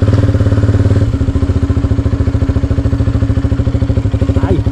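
Motorcycle engine running at low speed, a steady throbbing putter that eases off slightly about a second in.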